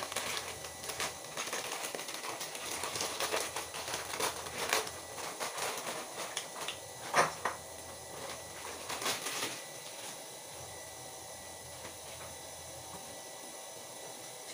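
Kitchen handling noise: many small clicks and rustles as things are handled on the counter, with one sharper knock about seven seconds in. After about ten seconds only quiet room tone with a faint steady high whine remains.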